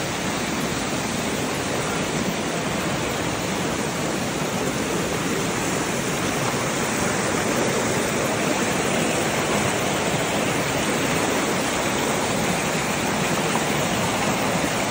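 Waterfall cascades: a steady rush of falling and running water.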